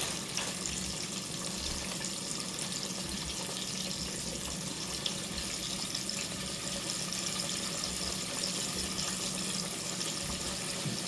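Chicken wings deep-frying in a pot of hot grease, a steady sizzling hiss with fine crackle.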